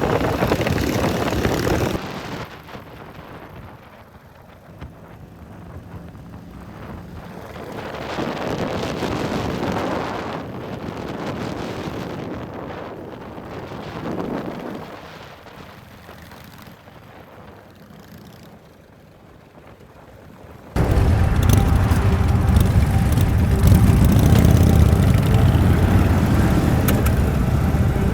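Motorcycle engines on a ride, heard in edited clips. The sound is loud at first, then quieter with engines swelling past a few times. About two-thirds of the way through it cuts abruptly to a loud, steady, deep engine drone.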